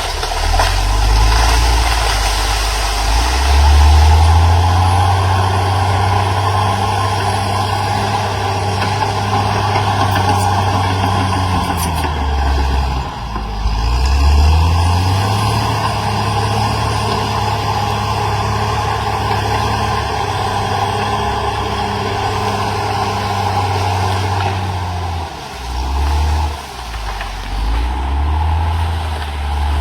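Caterpillar D6R XL bulldozer's diesel engine working under load. The engine revs up about four seconds in and again about fifteen seconds in, drops briefly just before that, and eases off and picks up several times near the end.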